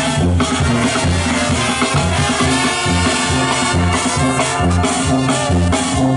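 Live Mexican banda playing an instrumental passage: trumpets, trombones and clarinet over a steady, bouncing bass line.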